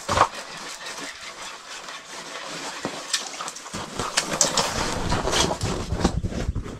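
Rustling and irregular crunching of someone moving about and stepping out over snow, getting busier about halfway through.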